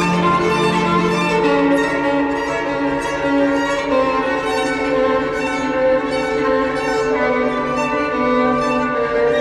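Background string music: held bowed notes over a steady pulse of about two beats a second.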